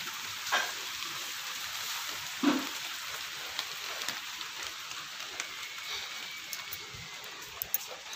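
Steady light rain falling outdoors, an even hiss with scattered drips and clicks; a single dull thump about two and a half seconds in.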